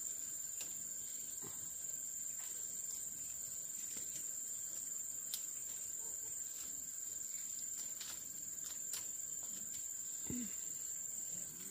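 Insects droning steadily at one high pitch, with scattered light clicks.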